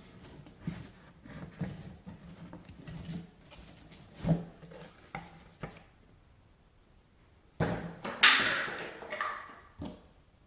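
Wheel packaging being handled and unwrapped: scattered light knocks and rubs, a short pause, then a loud burst of rustling near the end.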